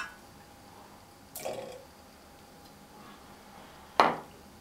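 Sparse kitchen handling sounds: a light tap at the start, a short scrape about a second and a half in, and a sharp knock near the end, the loudest of the three. They come from a silicone spatula working in a stainless saucepan of melted chocolate, then an egg going into a stainless steel mixing bowl.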